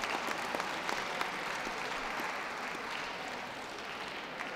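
Audience applauding steadily, the clapping easing off slightly toward the end.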